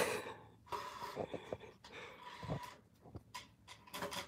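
Puppy's paws and claws tapping and scraping on a glass bathroom scale: a sharp click at the very start, then scattered faint clicks and taps.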